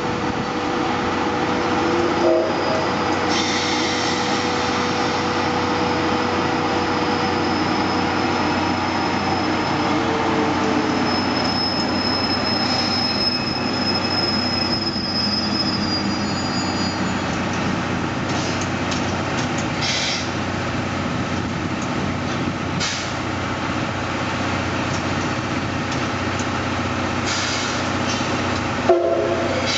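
JNR Class C57 steam locomotive No. 180 and its tender rolling slowly along station track, a steady running noise of wheels on rails. A thin high wheel squeal comes and goes from about four to sixteen seconds in, and a single short sharp knock comes near the end.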